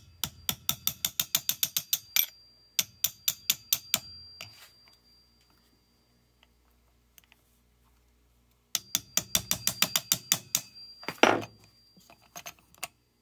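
Quick, light hammer taps on a brass rod driving the wrist pin out of a chainsaw piston, about six taps a second in three runs with pauses between, a thin metallic ring hanging on after them. A single louder knock near the end.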